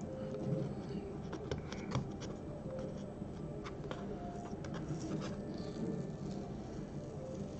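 Low-tack tape being peeled off the edges of watercolour paper: a run of small crackles and ticks as it lifts away.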